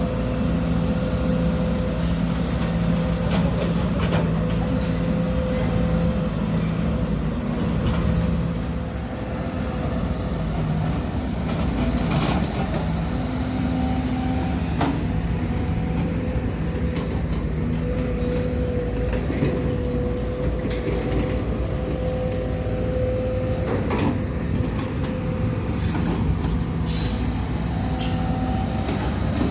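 Sumitomo SH210-6 hydraulic excavator working: its diesel engine runs steadily with a steady whine over a dense low rumble, and a few sharp knocks break in now and then.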